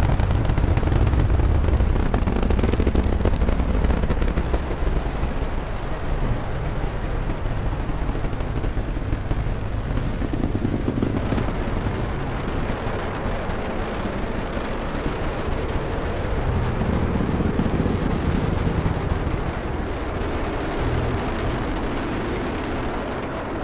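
A Delta IV Heavy rocket's three RS-68A engines in ascent after liftoff: a loud, deep rumble that slowly grows fainter as the rocket climbs away.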